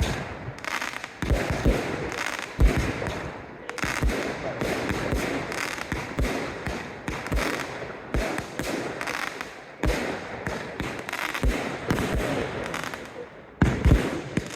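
Fireworks display: a dense, irregular run of shell bursts and booms with crackling between them, easing off briefly near the end before a fresh cluster of loud bangs.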